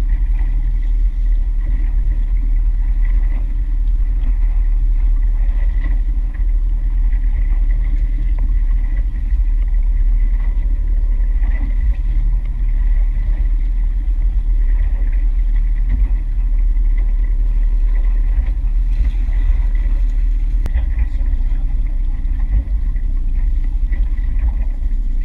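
Outboard motor of a fishing boat running steadily, a constant low rumble with a faint steady whine above it.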